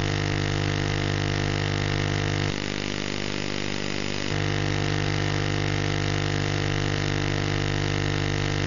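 Steady, buzzy hum with many overtones from the FM audio of a weak, distant analogue TV signal picked up by DX reception. About two and a half seconds in, the low part of the buzz drops and hiss shows through for nearly two seconds, then the buzz comes back.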